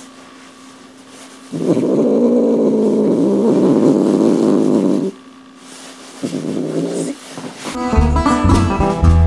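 Maine Coon cat purring loudly right against the microphone, in a long bout starting about a second and a half in and a shorter one later. Near the end, plucked acoustic blues guitar music starts.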